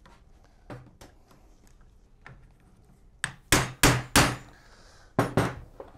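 Mallet striking a femoral impactor to seat a trial femoral component on a synthetic knee model's femur: four sharp blows in quick succession about three seconds in, then two more about a second later.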